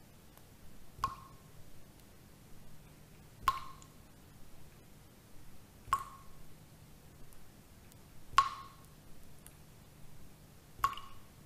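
Water dripping at a slow, even pace: five single drops, about one every two and a half seconds, each a sharp plink with a short ringing tone. A faint low hum sits underneath.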